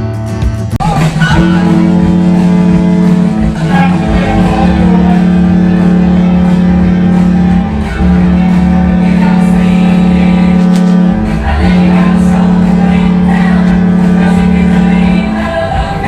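Music with singing and long held notes.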